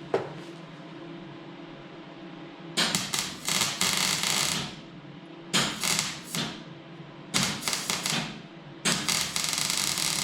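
Electric arc welding on car body sheet metal: four crackling weld bursts of a second or two each, the first a little under three seconds in, with short pauses between them.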